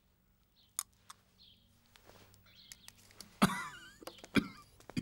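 Quiet meal sounds: light clinks of chopsticks and porcelain bowls at the table, with faint bird chirps in the background. About three and a half seconds in comes one louder, sharp sound.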